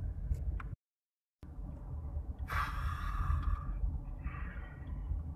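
Steady low road and engine rumble inside a moving car's cabin. It drops to total silence for about half a second just under a second in. About two and a half seconds in comes a louder hissing sound with a faint pitch, lasting about a second, and a shorter, fainter one follows about a second later.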